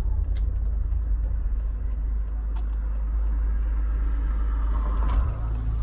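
Car running, heard from inside the cabin: a steady low engine and road rumble as it starts to move, with a few faint, scattered light clicks.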